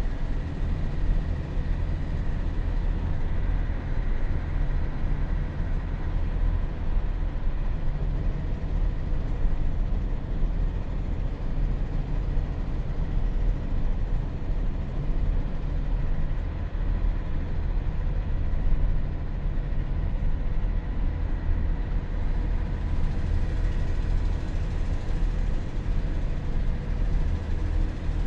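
Scania K113CLB coach's rear-mounted straight-six diesel droning steadily at cruise with road and tyre noise, heard inside the passenger cabin. A faint steady whine rides over the drone.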